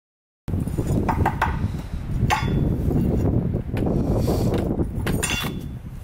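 Electric drill with a twist bit boring through a thin steel bar, running with a low rumble while the bar clinks and rattles sharply against the board as the bit bites. It starts about half a second in and eases off near the end as the drill is lifted away.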